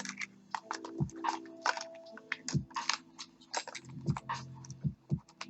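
Irregular small metal clicks and scrapes of tools working on a KABA Gemini lock cylinder as its retaining C-clip is taken off, over a steady low hum.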